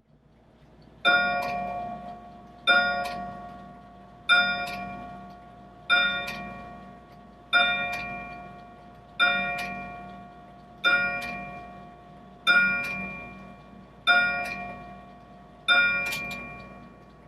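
Grandfather clock's gong striking ten strokes, about one and a half seconds apart, each ringing out and fading before the next. It is the striking train running on its repaired mainspring.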